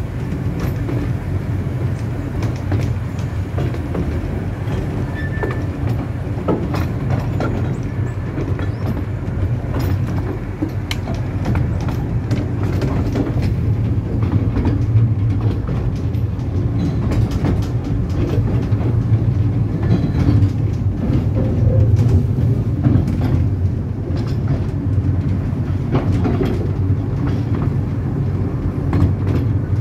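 A 15-inch gauge miniature railway train running, heard from aboard a carriage: a steady low rumble with scattered clicks and clacks from the wheels on the track.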